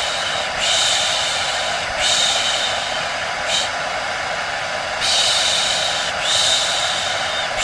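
White noise for lulling a baby to sleep: a steady hair-dryer rush, with a louder high hiss swelling in and out about every second and a half.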